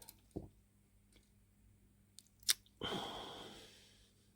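A faint knock and a sharp click of parts being handled, then a long breathy exhale that fades away, a sigh of frustration.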